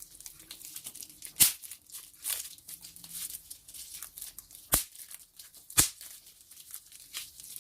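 Plastic bubble wrap being crinkled and squeezed by hand, its bubbles popping: a scatter of small crackles with three loud, sharp pops.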